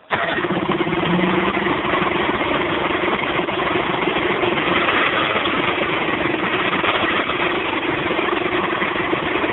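1971 Chrysler 70 hp two-stroke outboard motor running steadily, at an even speed with no revving.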